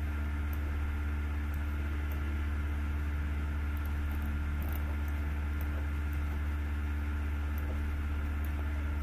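Steady low hum with faint hiss, unchanging throughout: the background noise of the recording with no one speaking.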